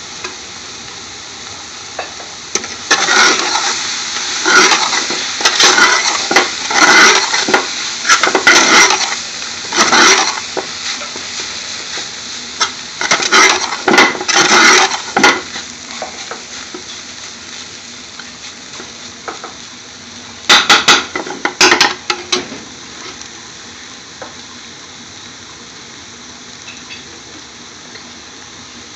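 Spinach sizzling in hot oil with onions and garlic in a large metal pot, turned over in bursts by a long metal spoon scraping and clanking against the pot. The stirring comes in three spells, the longest in the first third and the last about three-quarters through, after which only the steady sizzle remains.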